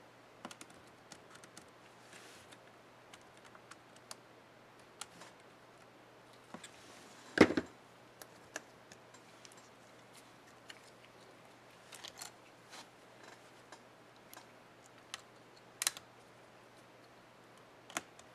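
Small plastic clicks and taps of laptop keycap parts being fitted, with one louder snap about seven and a half seconds in: the Enter keycap and its scissor-clip retainer on an HP Stream 11 keyboard.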